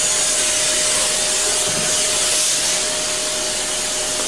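Handheld vacuum cleaner running steadily, a constant motor whine over a hiss of rushing air, as it clears milling chips off a freshly CNC-cut plastic workpiece.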